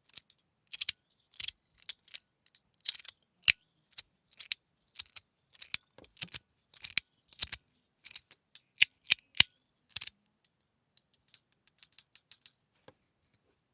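Titanium-alloy tuning-fork fidget slider (Restless Studio Xia Mu x2) being slid back and forth, giving sharp metallic clicks about twice a second. After about ten seconds the clicks turn faint and sparse.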